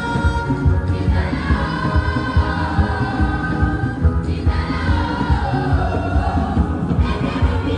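Gospel praise and worship music: a choir sings over a full band with a heavy, pulsing bass and drum beat, the voices holding long notes that slide up and down.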